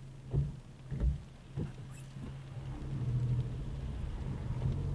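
Car engine idling, heard from inside the cabin, with three short, sharp thumps in the first second and a half. About halfway through the car pulls away and the engine and tyre noise on the wet road grow louder.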